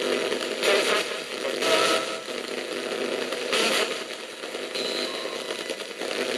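NanocomS Coffin Edition spirit box sweeping through radio stations, giving harsh, choppy static with louder bursts about a second apart and brief clipped fragments of broadcast sound.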